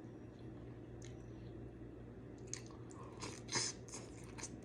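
Close-up mouth chewing and lip smacking while eating saucy seafood, a run of short wet smacks in the second half, the loudest about three and a half seconds in.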